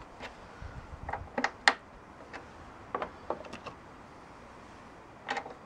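Irregular light clicks and taps of small metal hand tools being handled, as screw extractor bits are tried for fit in a drilled-out bolt. About ten separate clicks, the sharpest about a second and a half in.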